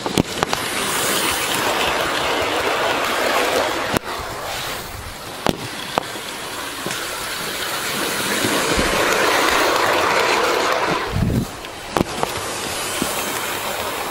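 Hornby OO gauge model train, an H class tank locomotive pulling two coaches, running on its track: a steady rolling rush of motor and wheels that swells as the train passes close about two-thirds of the way through, with a few sharp clicks.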